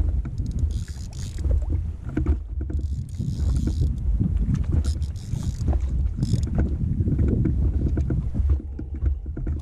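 Strong wind buffeting the microphone in a heavy, fluttering low rumble, with short bursts of higher hiss coming and going, aboard a small inflatable boat on a choppy sea.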